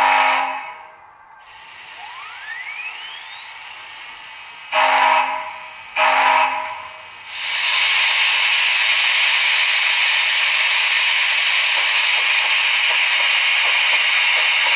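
Sound decoder of an HO-scale Athearn Union Pacific Big Boy #4019 model playing steam-locomotive sounds. The end of a long whistle blast comes first, then a rising whine, then two short whistle blasts, the signal for moving off. From about halfway through there is a loud, steady hiss of steam with a faint beat in it.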